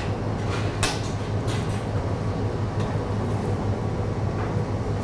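Steady low hum of kitchen machinery, with a few short clicks and scrapes of a knife on a plastic cutting board in the first two seconds as a red mullet is filleted.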